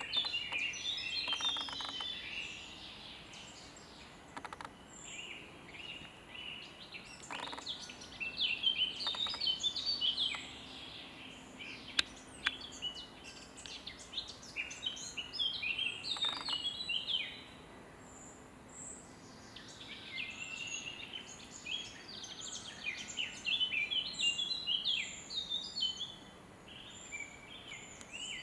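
Several songbirds singing in woodland, a steady overlapping chorus of short chirping and warbling phrases that swells and eases off by turns.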